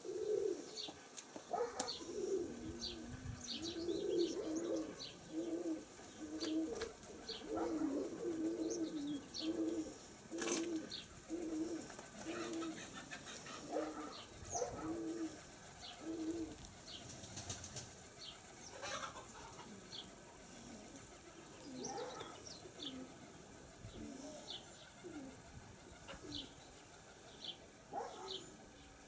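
Nikolaev pigeons cooing in a run of short repeated coos through the first half, with wing flaps. High chirps of small birds are scattered throughout.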